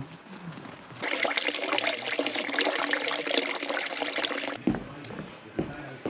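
Liquid running into a plastic bucket for about three and a half seconds, starting about a second in and stopping suddenly.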